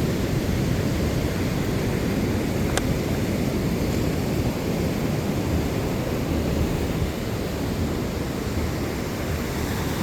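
Ocean surf and wind buffeting the microphone, a steady rushing noise.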